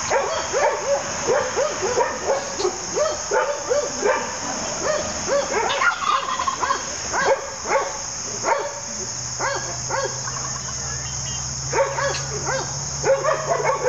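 Rapid run of short, yelping animal calls, about two a second, over a steady drone of insects. A low hum joins about two-thirds of the way in.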